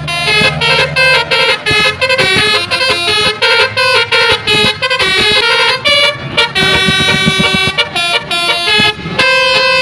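Indonesian Basuri telolet bus horn, a set of roof-mounted trumpet air horns, playing a fast tune of short horn notes that change pitch quickly, with a few notes held longer.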